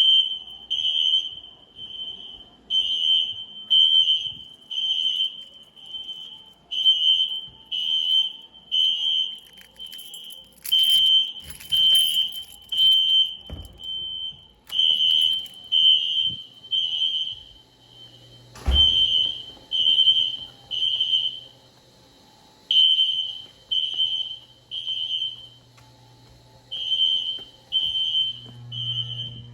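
System Sensor SpectrAlert Classic fire alarm horns sounding a high-pitched pulsed tone in groups of three beats with a short pause between groups, several horns going at once and not quite in step. A single thump cuts through about two-thirds of the way in.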